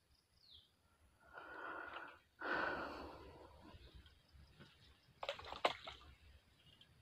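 A person breathing out heavily twice close to the microphone, about a second and a half in and again just after two seconds, then a brief burst of rustling clicks near the end.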